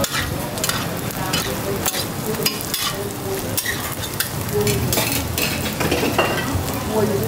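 Roti frying on a hot griddle with a steady sizzle, broken by many sharp clicks and taps of metal utensils.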